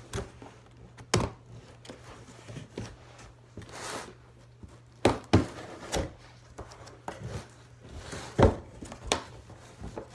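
Cardboard shipping box being opened and handled by hand: irregular knocks and thumps of the box and its flaps, with rustling and scraping of cardboard and packing between them.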